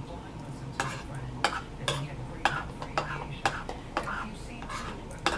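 Spoon scraping and clinking against a plastic bowl, a short stroke about twice a second, as the bowl is scraped clean.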